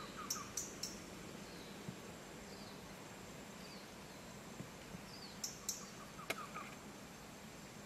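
Tropical forest ambience: a steady hiss with a bird's short falling chirps repeating about once a second. A few sharp clicks come near the start and again about five to six seconds in.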